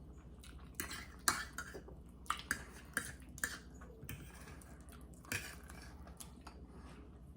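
Forks and spoons clinking and scraping against plates, a scattered run of short taps and clicks while eating.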